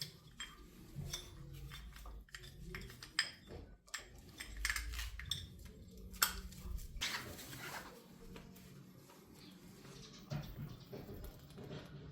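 Metal tools and brake parts clinking and knocking as they are handled during a motorcycle front brake pad change, in irregular light clicks, with a rush of noise lasting about a second some seven seconds in.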